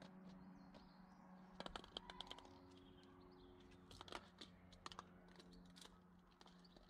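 Faint, light clicks and taps in a few short clusters as a cat plays with a small plastic toy ball on stone paving slabs, over a faint steady low hum.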